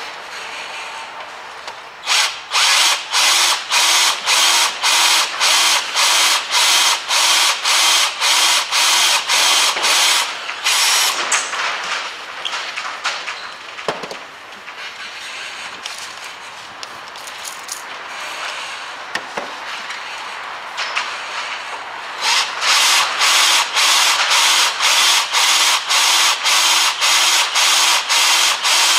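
Cordless drill with a 5 mm bit boring into an old broken bolt in a steel hub carrier, drilling the pilot hole for re-tapping an M6 thread for the ABS sensor. The drill runs in short, even bursts about two a second for several seconds, stops in the middle for a stretch with only a few clicks, and then starts drilling again in the same bursts.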